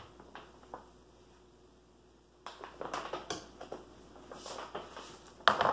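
Light clicks, knocks and rustles of hands working with raw meat, a knife and plastic freezer bags on a counter. The first couple of seconds are quiet, and there is one sharper knock near the end.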